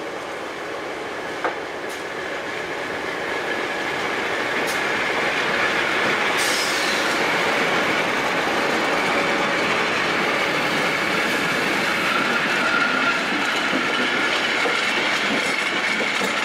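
MLW FPA-4 diesel locomotives rolling by, their engines running and their wheels squealing on the rails with a steady high tone. The sound grows louder over the first few seconds as they come closer, with one sharp click about a second and a half in.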